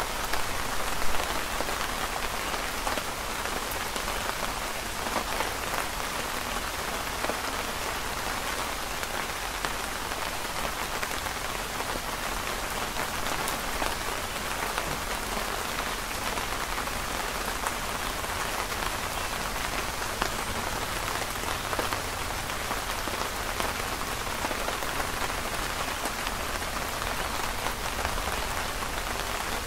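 Steady rain falling, heard from under a canopy, with a few faint crackles from a wood campfire, the sharpest about a second in.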